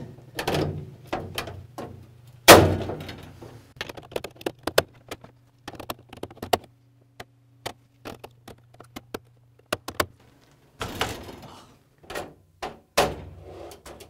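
Steel drawer slides being hooked into the slotted steel side walls of a Snap-on tool cabinet: a string of metallic clicks and clacks, with one loud clank about two and a half seconds in and short rattles near the end.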